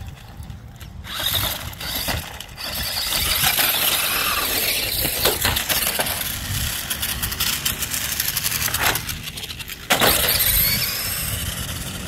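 Toy Dodge Charger RC monster truck running hard: its small electric motor and gears whining and its tyres scrabbling over wood-chip mulch and concrete, with scattered knocks as it bumps down a curb and tumbles. The noise eases for a moment near the end, then picks up again.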